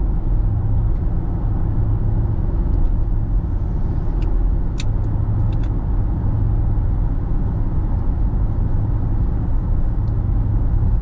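Steady low rumble of a car driving along the road, engine and tyre noise, with a few faint ticks about four to six seconds in.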